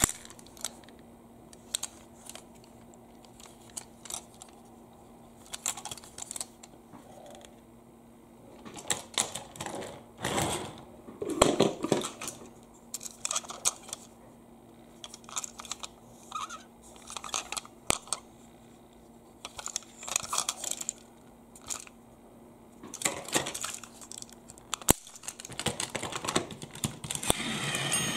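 Plastic toy train engines being handled: scattered clicks, taps and rattles of plastic parts, with a louder spell of handling about ten to twelve seconds in. Near the end a steadier running noise sets in.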